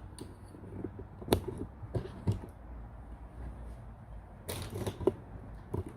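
Handling and movement noises: a few sharp knocks and clicks, the loudest about a second in, and a stretch of rustling a little past the middle.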